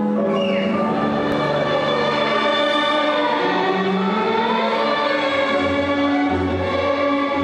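Orchestral music playing, with sustained, slowly gliding string-like notes. A low bass line comes in about five seconds in.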